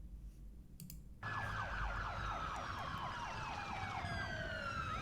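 Emergency sirens, several at once, starting abruptly about a second in. Some tones slide slowly down in pitch, one cycles in quick rapid sweeps, and a low hum runs underneath. A few soft clicks come just before.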